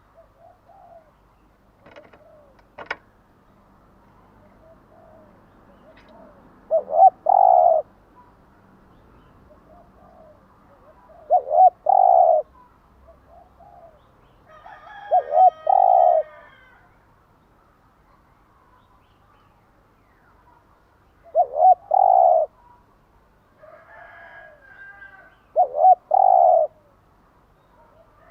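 Spotted dove cooing: five loud phrases about every four to five seconds, each a couple of short notes running into a longer coo. Faint higher chirps come in between them.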